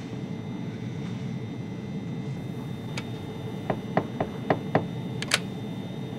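Steady drone of an airliner cockpit, with a quick run of about seven sharp clicks a little past halfway.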